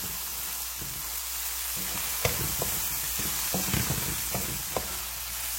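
Chicken and scrambled eggs sizzling steadily in a hot pan, with a spatula knocking and scraping against the pan every second or so as they are stirred together.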